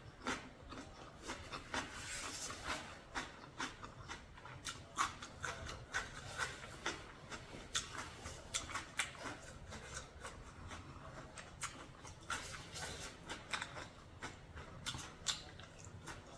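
A person eating spicy seafood papaya salad close to the microphone: irregular chewing, crunching and mouth clicks, many short crackly strokes a second.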